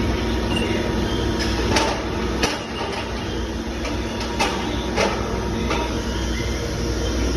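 CNC milling machine running with a steady mechanical hum, broken by a handful of sharp clanks and knocks.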